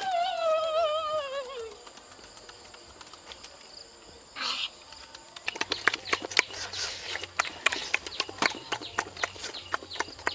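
A boy's drawn-out, falling "ooh" of delight over the first two seconds, then from about halfway on rapid wet clicking of chewing and lip-smacking as the boys eat.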